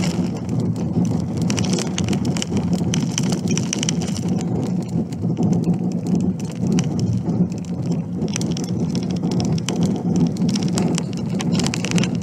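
Car driving on an unsealed gravel road, heard from inside the cabin: a steady low rumble of tyres and engine under a dense, constant crackle.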